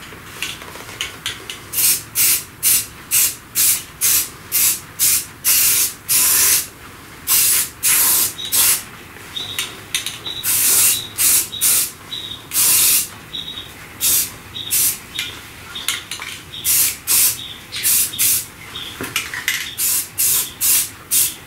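Aerosol spray-paint can sprayed in many short bursts, each a sharp hiss of about half a second, with a few longer passes near the middle.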